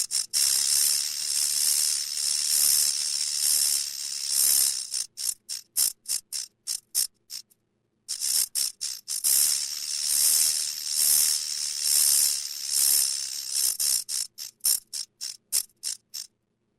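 Electric shock sound effect: a loud crackling electrical buzz that swells and fades about twice a second, then breaks into rapid sputtering stutters and cuts out briefly about halfway through before starting again, stuttering once more and cutting off near the end.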